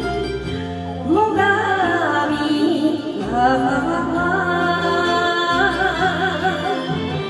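A woman sings a Japanese song into a microphone with a wavering vibrato, over a karaoke backing track; her voice comes in about a second in.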